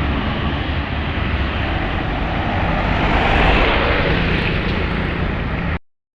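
A large tour bus passing close by: diesel engine and tyre noise that swells about three seconds in, then cuts off abruptly near the end.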